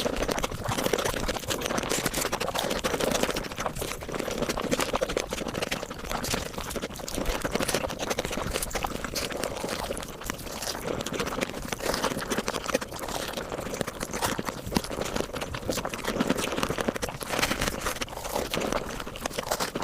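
Mukbang eating sounds sped up about five times: a dense, continuous run of rapid chewing clicks, crunches and wet mouth sounds.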